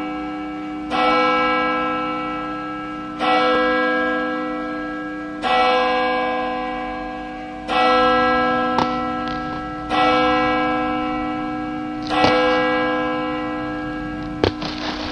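A single bell tolling slowly and evenly, one stroke about every two seconds, six strokes in all, each ringing on into the next. A sharp click comes near the end.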